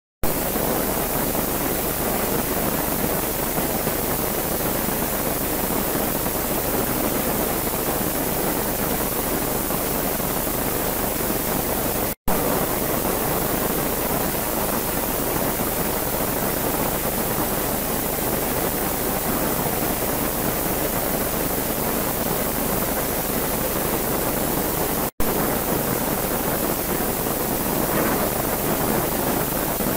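Steady loud hiss, even from low to high pitches, dropping out for an instant twice.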